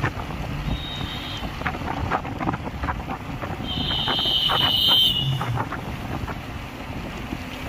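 Steady road and wind noise from a moving vehicle, with some rattling. A high-pitched double tone sounds briefly about a second in, then louder and longer from about four to five seconds in.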